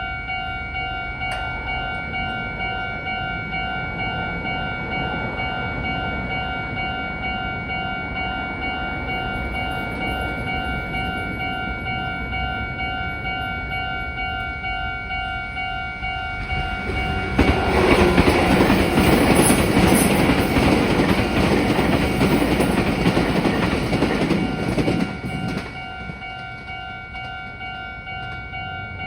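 A Japanese level-crossing alarm bell rings steadily throughout with its pulsing tones. About 17 seconds in, a Meitetsu Panorama Super electric train rushes loudly past the crossing for about seven seconds. The bell keeps ringing after the train has gone.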